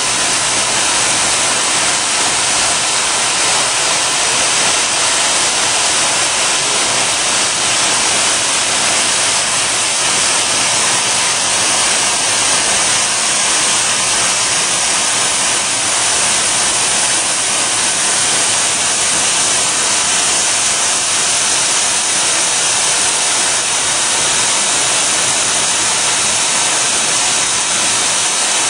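Steady, loud hiss of a coolant spray nozzle blowing onto the spinning tool of a friction stir welding machine as it welds aluminium, with no breaks.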